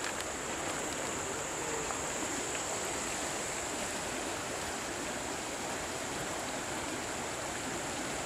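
Muddy floodwater rushing down a small river channel, a steady, even rush.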